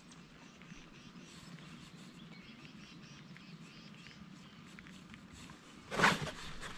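Faint open-air lake ambience with distant birds chirping, then a sudden loud, brief burst of noise about six seconds in.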